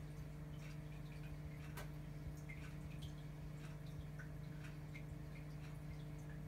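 Aquarium filter pump humming steadily, with scattered small drips and ticks of trickling water.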